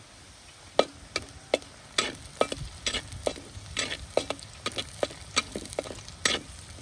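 A spoon knocking and scraping against a pan as sliced shallots and curry leaves are stirred, frying in hot coconut oil, with a faint sizzle underneath. The strikes start about a second in and come irregularly, two or three a second.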